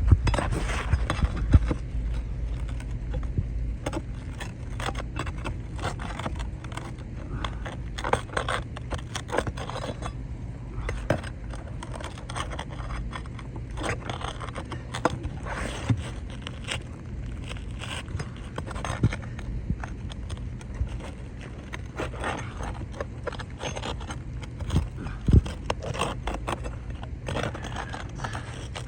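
Irregular scraping and short clicks as asphalt shingles are pried up and worked loose from underneath to pop out the staples holding them.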